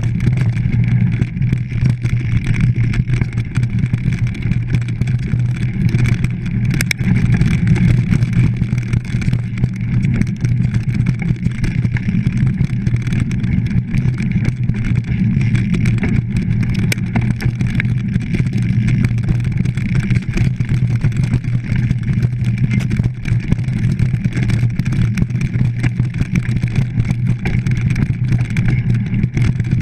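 Mountain bike ridden fast over a forest dirt trail, heard through a GoPro's housing: a continuous loud rumble of tyres and wind, with frequent small rattles and knocks as the bike goes over bumps.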